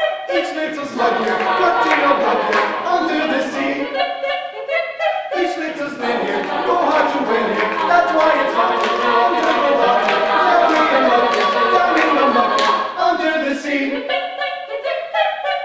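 Mixed a cappella group of men's and women's voices singing live in harmony, several parts at once, with no instruments.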